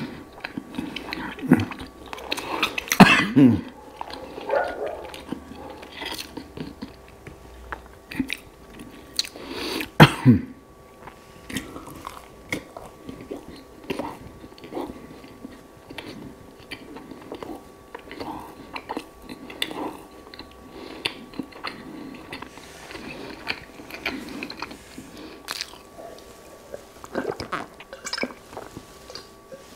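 Close-miked chewing of whole-wheat bread with honey, with wet mouth clicks and smacks. Two louder mouth sounds come about three and ten seconds in.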